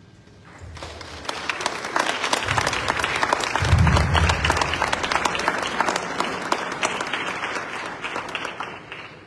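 Audience clapping, building after about a second and tailing off toward the end.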